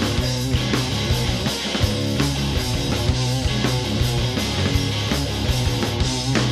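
Rock band playing loud, fast rock and roll: electric guitar and drums keeping a steady driving beat, with no singing.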